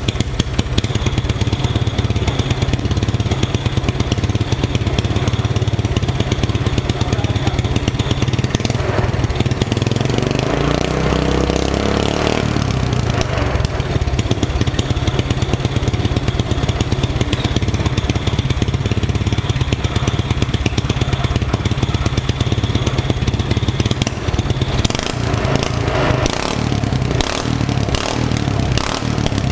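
Small petrol engine of a motorised drift trike, just brought back to life, running steadily. It is revved once, rising about ten seconds in and dropping back sharply a couple of seconds later. It runs unevenly, with several short sharp noises, near the end.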